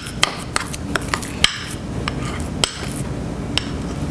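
A metal fork clinking and scraping against a small glass bowl while mixing a thick nut-cheese mixture: irregular sharp clinks, about two a second, over a steady low hum.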